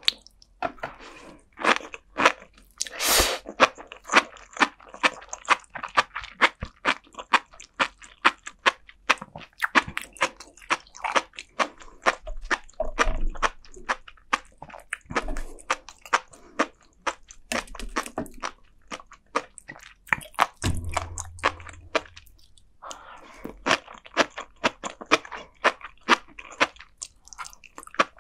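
Close-miked chewing of popping flying fish roe (tobiko) and sea grapes: dense, rapid little pops and crunches between the teeth.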